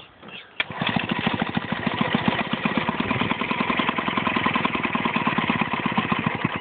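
Small outboard motor on a skiff's stern pull-started, catching about half a second in and running with a rapid, even putter, then cutting out near the end: the engine stalls.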